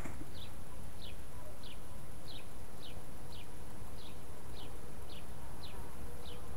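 A small bird calling: a short, high, falling chirp repeated steadily about three times every two seconds, over a low rumble.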